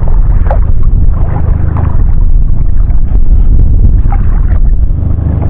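Loud, steady wind buffeting on an action camera's microphone, a low rumble with no pitch, over choppy water.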